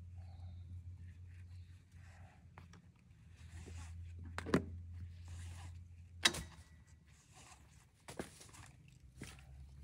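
A webbing strap rustling and sliding as it is handled around a tree trunk and let drop, with a few sharp knocks, the two loudest about four and a half and six seconds in. A steady low hum runs underneath.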